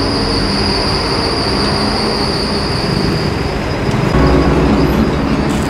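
Steady city street traffic noise with a constant high whine over it; a heavier low rumble of a vehicle passing comes in about four seconds in.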